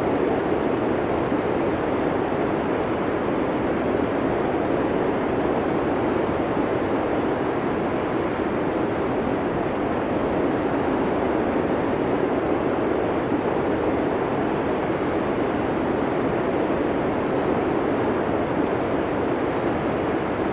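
Blizzard wind blowing steadily: an even, deep hiss without gusts or lulls.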